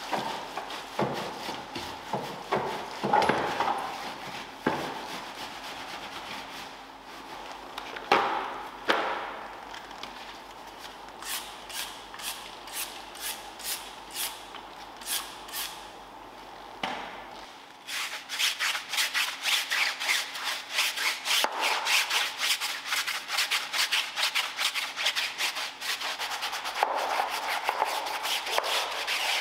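Hand scrubbing on car interior surfaces. Scattered strokes at first, then a slow rhythm of about two strokes a second, then fast, continuous scrubbing strokes over the last third.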